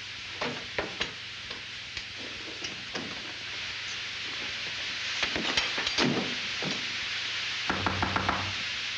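Scattered light knocks and clatters as a bundle of long pipes is carried along and bumped, with footsteps, over the steady hiss of an old film soundtrack. The louder knocks come about halfway through, and a quick rattle with a low rumble comes near the end.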